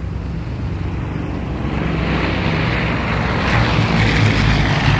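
An engine droning with a steady low hum, joined about two seconds in by a rushing noise that keeps growing louder.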